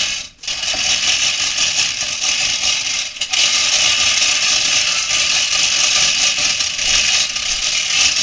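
Chain hoist hauling a boat hull up on its slings, a steady rapid mechanical rattle, sped up, with a brief dip about three seconds in.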